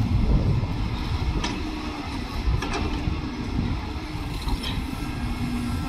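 Heavy construction machinery running with a steady low engine rumble, with a few short sharp metallic sounds over it.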